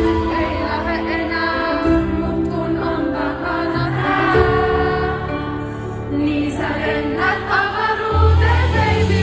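Live pop music: a woman sings into a microphone over a band's sustained keyboard chords, recorded from inside the audience. A heavy bass comes in about eight seconds in.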